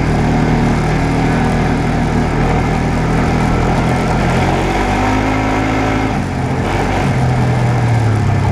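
Off-road vehicle engine running under way on a dirt trail. The engine note shifts and dips about five seconds in, then settles on a new, stronger note about seven seconds in.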